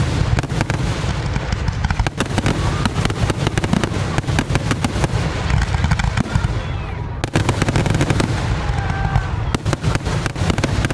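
Aerial fireworks going off in a rapid, dense barrage of bangs and crackles over a heavy low rumble, easing briefly about seven seconds in and then picking up again.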